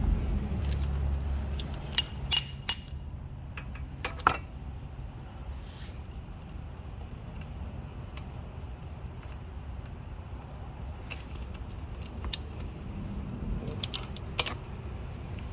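Scattered metallic clicks and clinks of a wrench on the oil drain plug as it is screwed back into a 125cc go-kart engine after draining. There is a cluster of clinks a couple of seconds in and more near the end.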